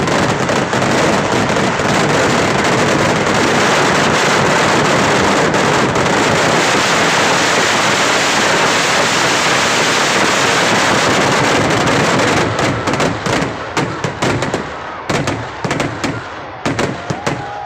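Daytime fireworks finale: a dense, unbroken barrage of firecracker explosions at full loudness. About twelve seconds in it thins out to scattered single bangs that grow sparser toward the end.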